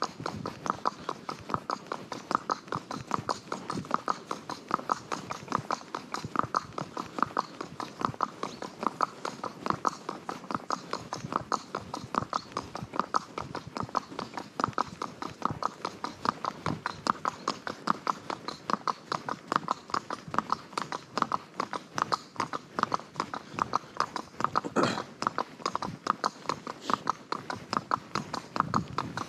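Hooves of a ridden horse clip-clopping in a steady, even rhythm, with one brief louder noise near the end.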